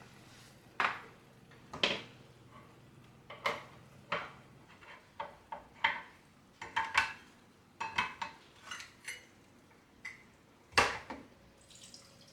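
Dishes and utensils being handled: a string of irregular clinks and knocks, the loudest about a second in and again near the end.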